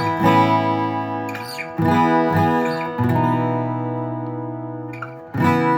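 Acoustic guitar in open E tuning playing a riff of two-note chord shapes on the top strings, moved between frets. Several chords are struck in turn, and one around the middle is left ringing for about two seconds before the next.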